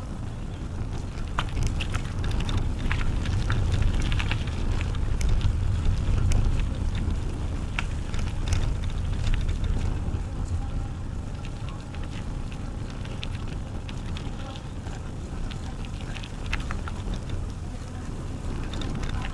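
Bicycle riding along a trail: a steady low rumble of wind on the microphone and tyres rolling on the path, with scattered clicks and rattles from the bike and the trail surface.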